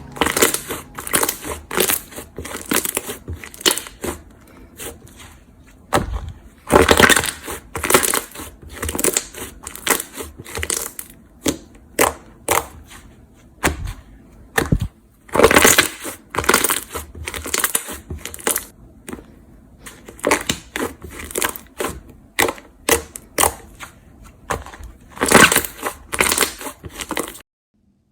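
Slime being squeezed and pressed by hand, giving irregular crackling, popping squelches with a few louder bursts; it cuts off suddenly near the end.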